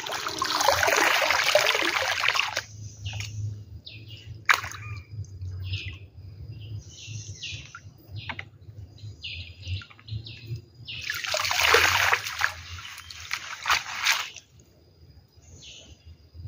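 Water splashing and sloshing as a gill net with fish in it is pulled and handled in floodwater, in two longer bursts, one at the start and one about eleven seconds in. Birds chirp between them.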